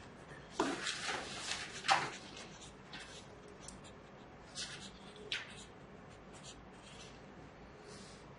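Paper handling on a textbook: a rustle of a page being turned, about half a second in and lasting over a second, ending in a sharp flick. Then a few short scratchy strokes of a felt-tip marker writing on the page around the middle.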